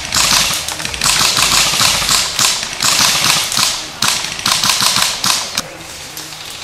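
Airsoft guns firing long full-auto bursts, a rapid mechanical clatter of shots with short breaks between bursts, stopping about five and a half seconds in.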